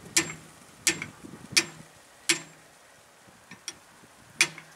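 Sharp ticking clicks at an even pace of about one every 0.7 s, pausing for about two seconds partway through.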